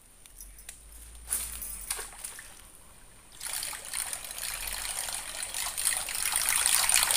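A surface lure being reeled in across swamp water on a baitcasting reel: a steady trickling, splashing noise that starts about three and a half seconds in and grows louder, after a couple of faint clicks.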